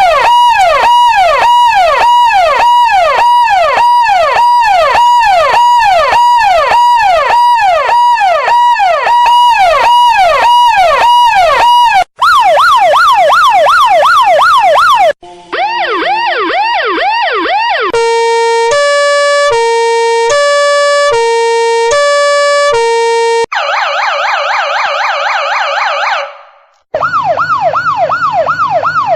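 A series of emergency-vehicle siren sound effects, cut abruptly from one to the next. First a fast up-and-down yelp sweeping about twice a second for roughly twelve seconds, then two shorter yelps at different pitches, a two-tone siren alternating between a low and a high note, a rapid warbling siren, and another yelp near the end.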